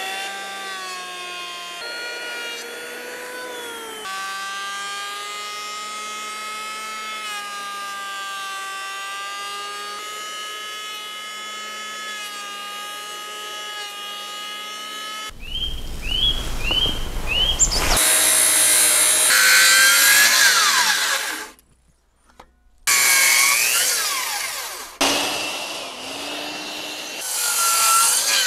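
Electric hand planer running with a steady whine as it shaves a squared wooden beam. About halfway through, a circular saw takes over and cuts a series of closely spaced kerfs into the timber, much louder, with short pauses between cuts.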